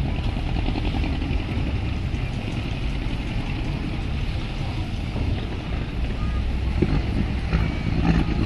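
Steady low rumble of boat engines on the river, with a haze of wind and water noise; it grows slightly louder near the end.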